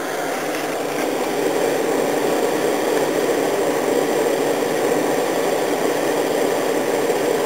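Electric fan heater running on its high setting: a steady whirr of the blower fan with rushing air, getting slightly louder about a second in.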